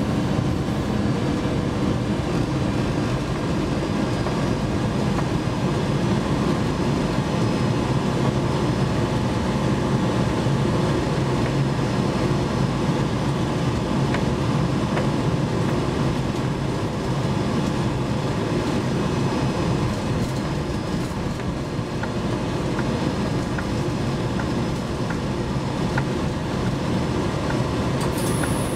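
Cab of a ČD Cargo class 340 electric locomotive running along the track: a steady hum and rumble of wheel and rail noise with several held tones and a few faint clicks. Near the end a high-pitched wheel squeal sets in.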